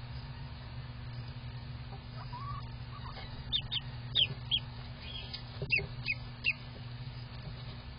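Newly hatched duckling peeping: a run of about eight short, high peeps in the middle of the clip. A steady low hum runs underneath.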